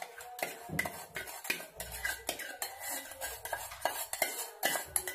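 Steel spoon stirring thick semolina (rava) cooking in a stainless steel pan, scraping and clinking against the pan's bottom and sides in an irregular run of sharp clicks, two or three a second. The rava is being stirred without stopping so that it does not stick or form lumps.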